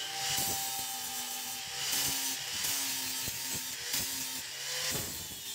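Angle grinder with a sanding disc running against a wooden axe handle, sanding it down. The sanding noise swells and eases as the disc is pressed to and lifted from the wood.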